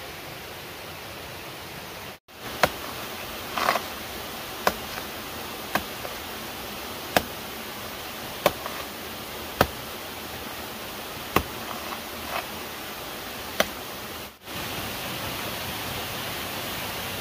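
Steady hiss of background noise with sharp single clicks or snaps about once every second or so.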